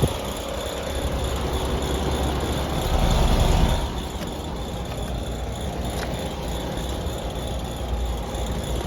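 Outdoor air-conditioner condensing unit running with a steady low hum and a faint high squeak.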